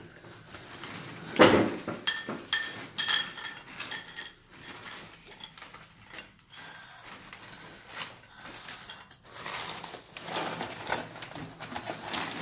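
Dry cereal pouring from a foil bag into a bowl, the pieces clattering and clinking against the bowl in bursts, with a loud knock about a second and a half in. The foil bag crinkles as it is handled.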